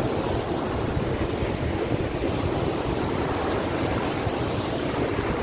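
Waterfall rushing below: a steady, even roar of falling water.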